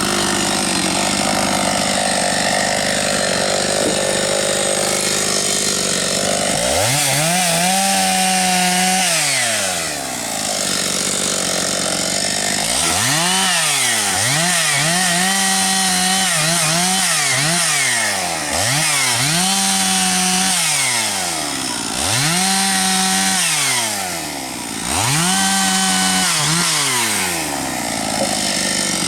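Husqvarna 272XP two-stroke chainsaw running hard for several seconds, then revved up to a high, held pitch and let back down about six times in a row, every two to three seconds, as the throttle is squeezed and released while bucking firewood.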